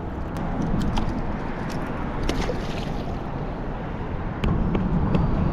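Steady low rumble with wind and water noise around a small fishing boat, a few faint clicks in it, growing louder about four and a half seconds in.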